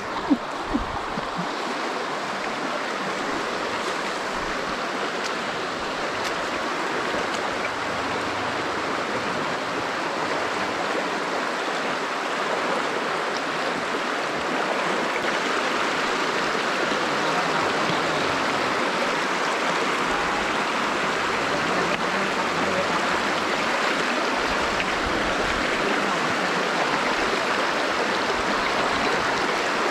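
Steady rush of flowing stream water, growing a little louder about halfway through.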